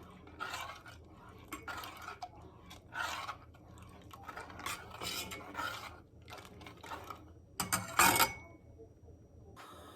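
Metal spoon scraping and stirring in a saucepan of milk heating toward the boil: a series of irregular scraping strokes, with a louder clatter about eight seconds in.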